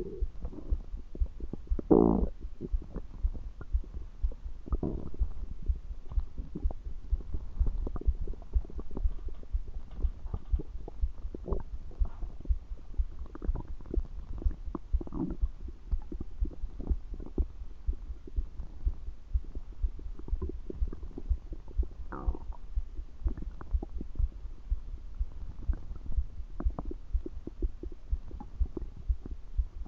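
Stomach gurgling and rumbling: a continuous run of short, low gurgles, with a louder, longer gurgle about two seconds in and another around twenty-two seconds in.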